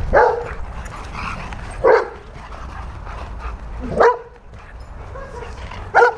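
A dog barking, single barks about every two seconds, four in all.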